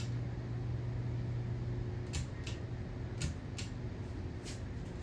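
Hunter Adirondack 52-inch ceiling fan running, with a steady low motor hum that fades about two seconds in and sharp light clicks coming every half second or so, often in pairs.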